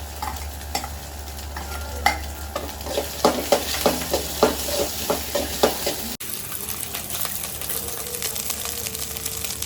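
Chicken fried rice sizzling in a hot pan as it is stir-fried, with a utensil striking and scraping the pan in a quick run of sharp clanks between about two and six seconds in. The sound breaks off abruptly just after six seconds, then the steady sizzling carries on.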